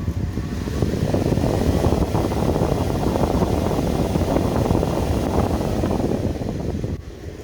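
Small rig fans on a fan controller turned up to high speed, their air stream buffeting the microphone. The rush builds over the first second, holds steady, and drops back near the end as they are turned down.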